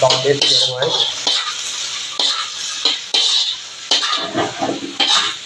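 Small river fish frying in a wok and being stirred, with repeated scrapes and knocks against the pan over a light sizzle.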